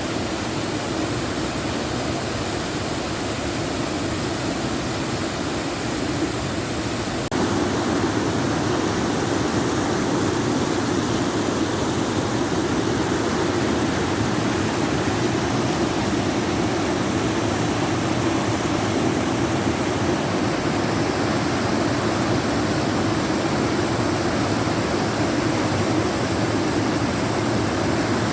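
Waterfall rushing: a steady, dense roar of falling water that steps up suddenly in loudness about seven seconds in, then holds steady.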